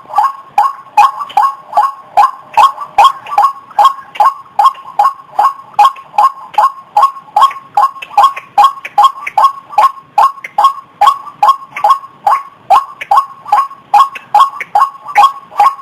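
White-breasted waterhen (ruak-ruak) calling, a rapid unbroken series of short falling notes at about two and a half a second, played as a lure call to draw waterhens out of cover.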